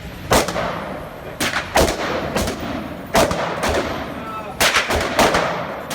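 Gunshots fired in quick, irregular succession, about ten in all, some in close pairs, each followed by a short echo.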